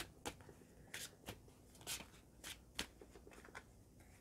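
A deck of oracle cards being shuffled by hand: a faint run of short, irregular flicks and slides as the cards are pushed through one another.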